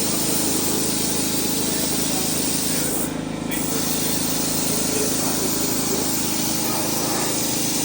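Paint spraying: a steady spraying hiss that breaks off briefly about three seconds in, over a steady motor hum.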